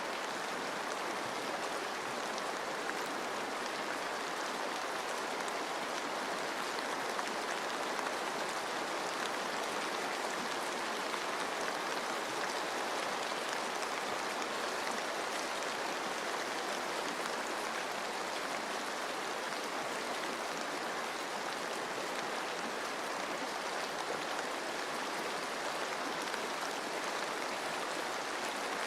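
Steady rain falling on forest foliage, an even hiss with scattered drop ticks, blended with running water.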